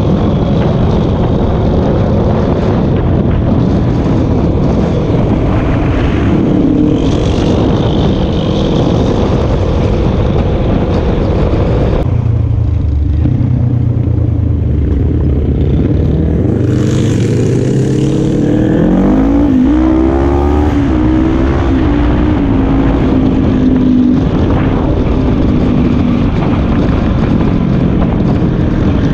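Engine of a small motor vehicle running on the move, with wind rushing over a helmet-mounted microphone. About twelve seconds in the wind noise drops as it slows, then the engine pitch climbs as it speeds up again.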